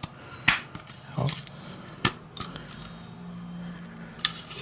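Hard plastic clicks and knocks, about five spread over a few seconds, from a plastic model kit's transport platform as its extendable supports are pushed back in one by one.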